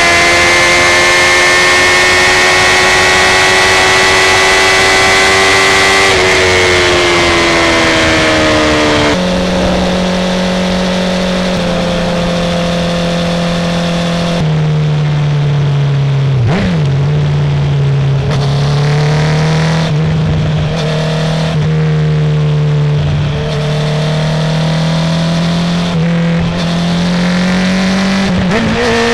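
Engines running: a high, steady engine note falls about six seconds in, then a lower engine note climbs slowly and drops back in steps several times.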